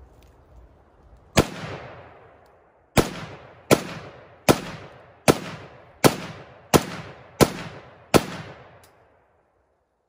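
AK-47 rifle (7.62×39 mm) fired semi-automatically: nine single shots, one and then, after a pause of about a second and a half, eight more at a steady pace of about one and a half a second. Each shot rings out in a short echo.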